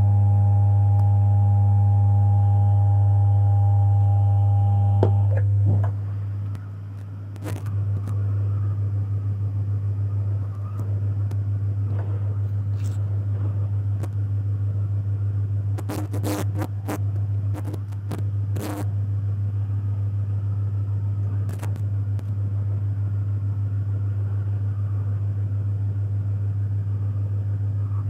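Hot air rework gun blowing while a MOSFET is soldered onto a motherboard: a steady low hum with air noise. A few sharp clicks sound around the middle. A set of steady tones sounds over it for the first five seconds, then cuts off.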